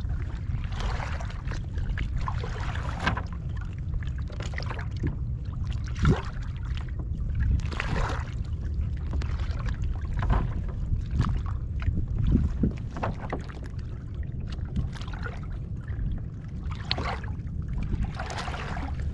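Wind rumbling on the microphone over water lapping and splashing against a kayak hull, with irregular small splashes and knocks throughout and one sharper knock about six seconds in.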